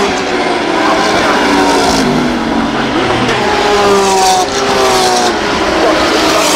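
Several race car engines going past one after another, their overlapping notes falling in pitch.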